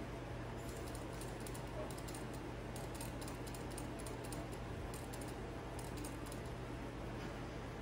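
Guinea pig feeding at the bowl and bottle: many small, irregular crisp clicks over a steady low hum.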